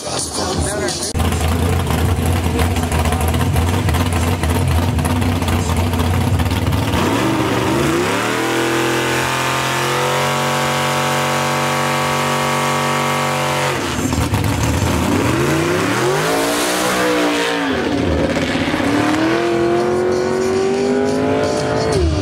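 Drag-racing car engine, loud throughout: a low rough running note at first, then rising in pitch about seven seconds in and holding a high steady note for about four seconds. The note drops sharply, then rises and falls once more and wavers to the end.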